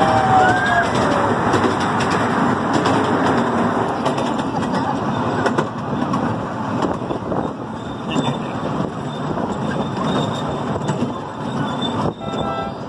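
Miniature train's open passenger cars rolling along the track, with a steady rumble and clatter of wheels on rail heard from on board.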